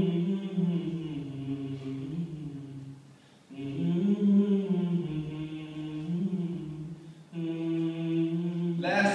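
A man's unaccompanied voice chanting in long, held melodic phrases, three of them, each breaking off before the next begins.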